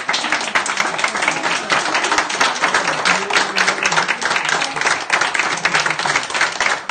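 A small crowd clapping steadily, with voices calling out over the applause.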